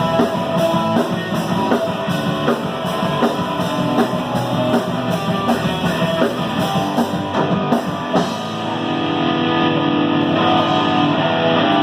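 Live rock band playing loud, with electric guitars and a drum kit. About eight seconds in the drumming mostly stops and a sustained guitar chord carries on.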